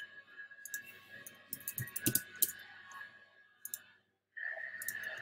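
Computer mouse clicks, a scattered run of sharp clicks that is busiest in the middle, over a faint steady high hum that cuts out briefly about four seconds in.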